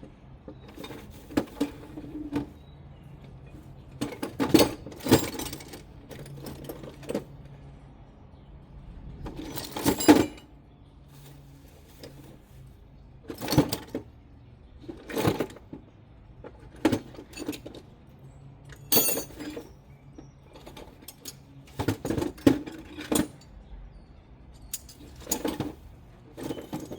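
Metal hand tools clanking and clinking as they are rummaged through, with about fifteen separate knocks at irregular intervals.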